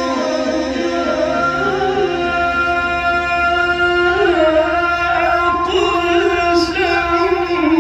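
A male Qur'an reciter in the melodic mujawwad style holding one long, ornamented note, the pitch wavering and moving about four seconds in.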